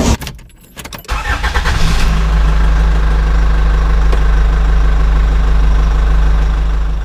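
A car engine starting about a second in, then running at a steady idle that fades near the end.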